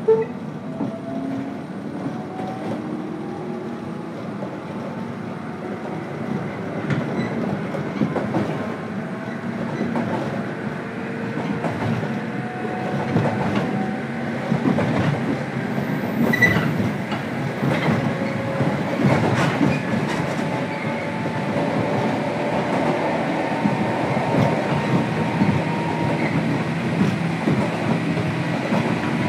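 Running sound of a JR Kyushu 103 series electric train heard from inside its motor car: the traction motors whine and rise in pitch as the train picks up speed, over a steady rumble with wheels clicking over rail joints.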